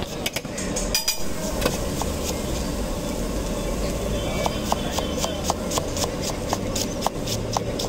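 Knife chopping a red onion against a wooden board in quick, even strokes, about four a second.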